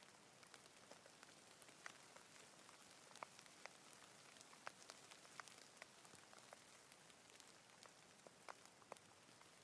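Faint, steady rain: an even hiss with individual drops ticking close by at irregular moments, a few of them sharper than the rest.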